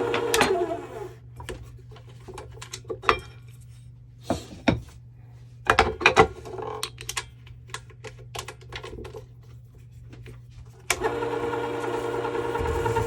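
Work Sharp WS3000 wheel sharpener's motor switched off, spinning down with a falling hum. Several seconds of scattered clicks and knocks follow as parts are handled. Near the end the motor starts again abruptly and runs steadily.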